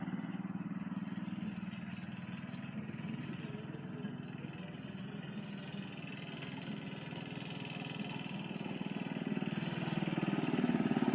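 Homemade minibike's small engine running steadily, faint at a distance, then getting louder over the last few seconds as the bike comes back closer.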